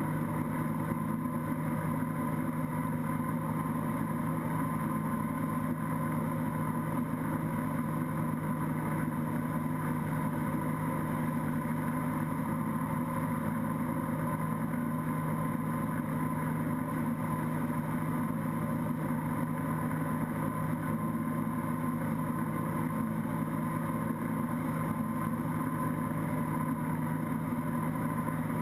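Moomba XLV wake boat's inboard engine running at steady surfing speed, an unchanging drone.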